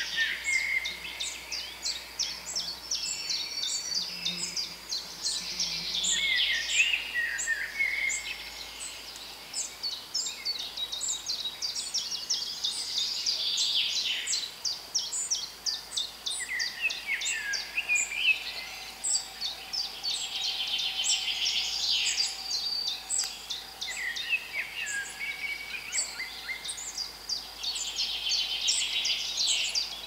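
Forest bird chorus: many birds singing at once, with rapid trills, chirps and whistled phrases overlapping throughout.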